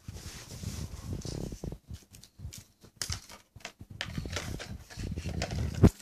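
Irregular rustling, knocks and bumps close to the microphone, with one sharp thump just before the end: handling noise from a handheld camera being moved about.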